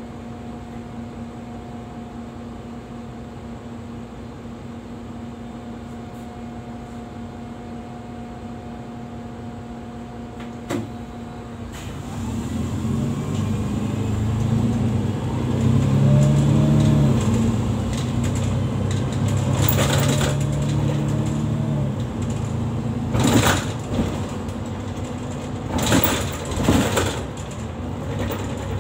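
A Mercedes-Benz city bus's engine heard from inside the bus: it idles with a steady hum for about twelve seconds, then runs much louder as the bus pulls away and accelerates, its note stepping up and down. Several sharp knocks or rattles come near the end.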